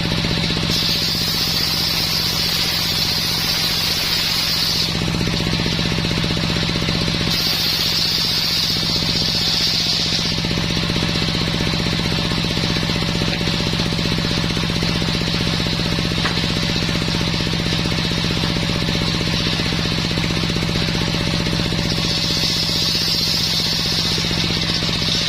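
Homemade circular-saw sawmill running steadily under its engine, cutting coconut-palm wood. Three times, starting about a second in, around seven seconds in and near the end, the blade in the cut adds a higher hiss over the steady engine hum.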